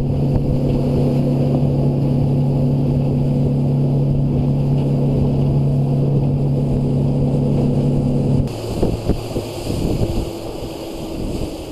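A plate-aluminium center-console boat's engine running with a steady drone while the hull runs through the water. About eight seconds in the drone drops away, leaving wind on the microphone and the rush and splash of spray along the hull.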